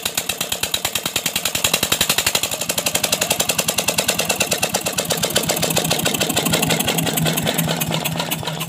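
Single-cylinder Petter-type stationary diesel engine running just after start-up, a steady rapid chugging of about eight firing beats a second.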